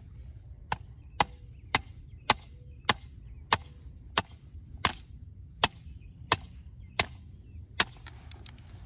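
Twelve sharp, evenly paced blows of a hammer driving a stake into the ground, a little under two a second and slowing slightly near the end, a few with a faint short ring.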